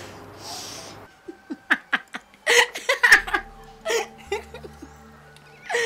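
A woman laughing in a string of short bursts, building from about a second in.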